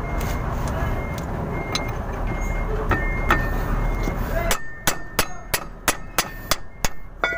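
A 22 mm steel wrench clicking and clinking against a propeller-shaft flange bolt as it is worked loose. In the second half there is a run of about ten sharp metallic clicks, three or four a second. Before that a steady low rumble runs in the background and drops away about halfway through.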